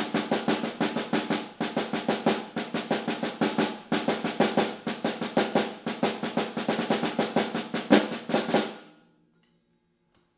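Snare drum played with sticks in a fast rudimental solo: rapid strokes with regular accents, a sharp accented hit about eight seconds in, then the playing stops just before nine seconds and the drum rings away.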